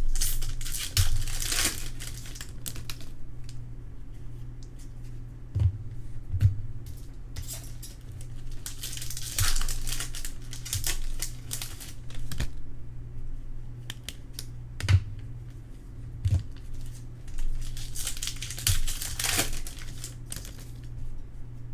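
Trading-card pack wrappers being torn open and crinkled while cards are handled, in repeated bursts of rustling with sharp clicks and taps, over a low steady hum.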